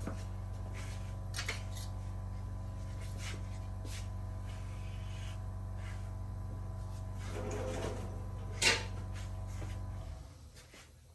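A steady low electrical hum with a few light clicks and knocks over it, one sharper knock being the loudest. The hum stops shortly before the end.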